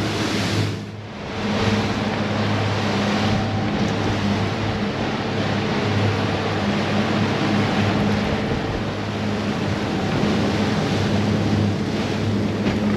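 Twin outboard motors running steadily, a low even hum under the rush of wake water, with a brief drop in loudness about a second in.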